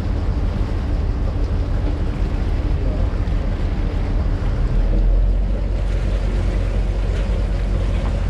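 Vaporetto (Venetian water bus) diesel engine running steadily, with water rushing along the hull and wind on the microphone. The deep rumble swells briefly about five seconds in.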